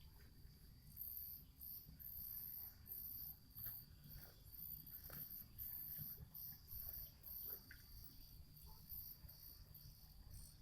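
Faint night insects chirping in pulsed, high-pitched runs over a steady high trill, with a low background rumble and a few faint ticks.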